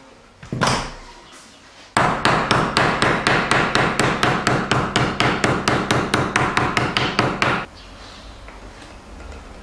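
Small hammer striking the staples that hold the mesh onto a wooden screen-printing frame, driving them flush. One blow about half a second in, then a fast, even run of about five blows a second for five and a half seconds that stops abruptly.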